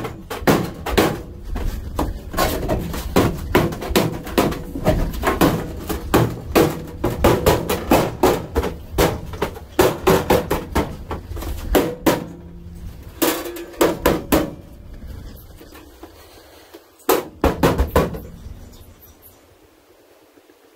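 Sharp metal knocks and clanks, about two a second, from hammering and handling aluminum-angle framing in an aluminum jon-boat hull. They thin out after about fourteen seconds, with a last few knocks a few seconds later.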